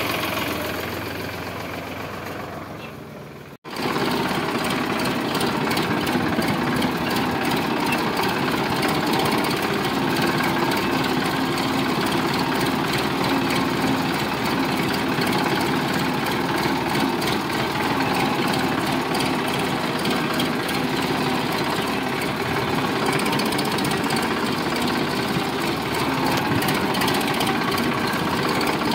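Sonalika DI 745 tractor's diesel engine running while it pulls a trailer heavily loaded with fodder. For the first few seconds the sound fades as the tractor moves away. A cut at about three and a half seconds brings a steady, close engine clatter as heard from the driver's seat.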